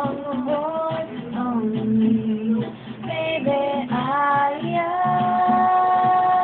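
A solo voice singing a wordless melodic run over instrumental accompaniment, settling into one long held note about five seconds in. The singer has a sore throat.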